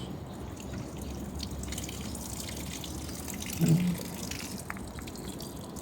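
Water dripping and trickling from a leak in an EcoCute heat-pump water heater, over a steady low hum, with one short low sound a little before four seconds in.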